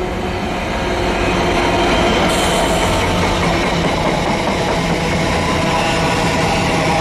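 Freightliner Class 66 diesel locomotive passing close by at line speed, its two-stroke V12 engine droning as it draws level, then the steady rumble and clatter of a long rake of container flat wagons rolling past. The sound grows louder over the first two seconds, then holds steady.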